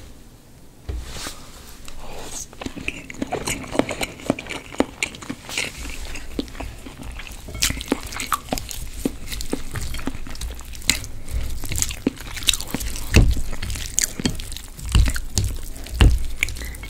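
Close-miked eating sounds: chewing and biting on makguksu noodles topped with boiled egg, radish and cabbage, with crisp crunches and sharp clicks of wooden chopsticks in the bowl. A few dull thumps stand out in the second half, loudest about thirteen and sixteen seconds in.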